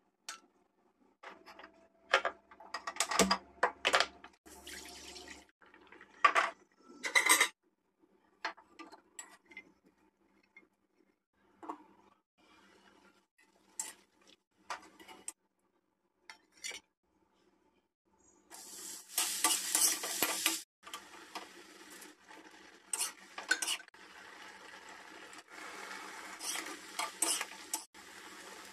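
A steel ladle clinking and scraping against a black kadai, in scattered sharp clatters. About two-thirds in, a steady sizzle of broccoli, mushrooms and potatoes frying in hot oil starts and carries on under the ladle's stirring scrapes.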